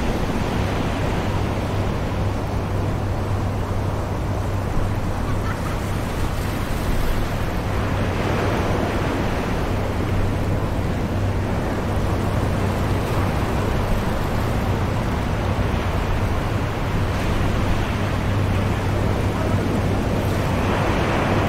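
Distant ocean surf on a beach: a continuous rush of waves, with a swell building and breaking about eight seconds in and another near the end.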